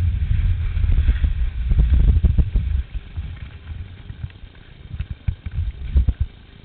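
Low rumble of skis sliding on packed snow and wind buffeting a knee-mounted camera, which drops off about three seconds in as the skier slows to a stop. After that come scattered knocks and scrapes of skis and poles on the snow.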